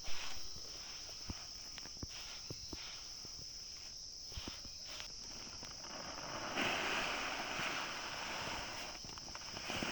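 A steady high-pitched insect buzz runs under scattered sharp clicks and snaps. From about six and a half seconds in, a louder stretch of rustling lasts for two to three seconds.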